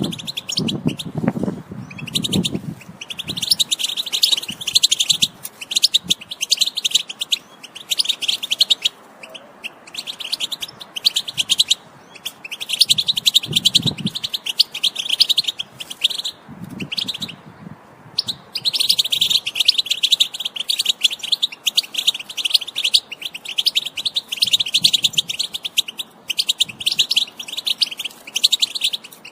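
European goldfinch singing its rapid, liquid twittering song in bouts of a few seconds with short pauses between, then a longer unbroken stretch from about two-thirds of the way in.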